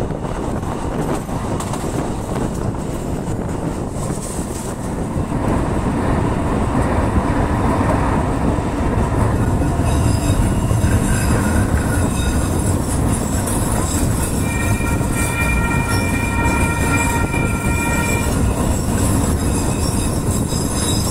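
CAF SRV-1 light rail train running along its track: a steady rumble of wheels and running gear. Past the middle, a steady high tone joins it for about three seconds.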